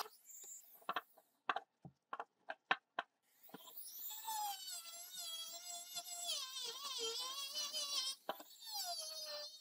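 A few light knocks as the metal sword hilt is handled, then, about three seconds in, a handheld rotary tool with a sanding drum whines against the metal, its pitch wavering up and down as the drum bears on the piece.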